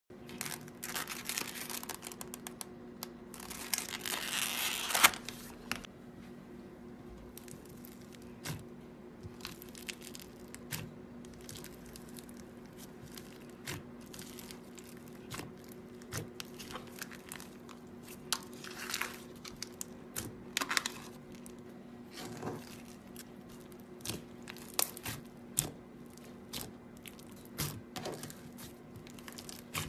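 Glitter slime being handled, with sticky crackling and tearing sounds. A dense run of crackles during the first five seconds gives way to scattered small clicks and pops.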